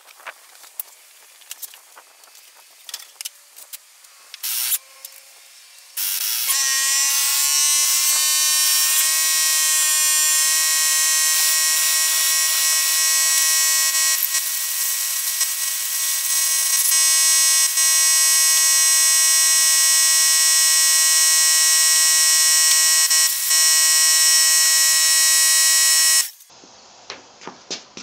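Air compressor starting up about six seconds in: a whine that rises in pitch for a few seconds, then runs steadily and loudly for about twenty seconds before cutting off suddenly. Before it, scattered clicks and knocks of tools being handled.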